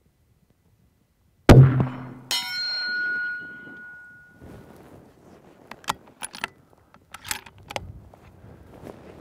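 A single 6.5 Creedmoor rifle shot, followed about a second later by the ringing clang of a hanging steel gong target being hit, the ring fading over a second or two. Then a few sharp metallic clicks as the rifle's bolt is worked.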